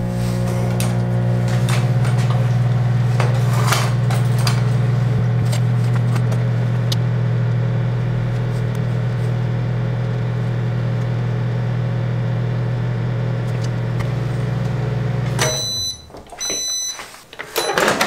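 Microwave oven running with a loud, steady hum, which stops about fifteen seconds in and is followed by a few short high beeps, then a brief clatter near the end.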